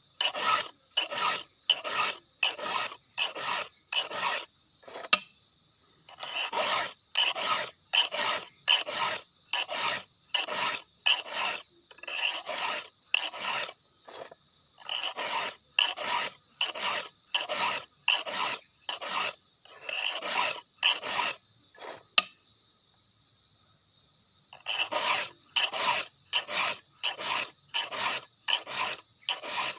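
A hand file rasping across the cutters of a chainsaw chain as it is sharpened. The strokes come about two a second in runs of several, with short pauses between runs.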